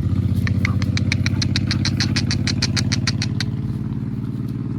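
An engine idling steadily, with a fast run of sharp clicks, about seven a second, over it that stops about three and a half seconds in.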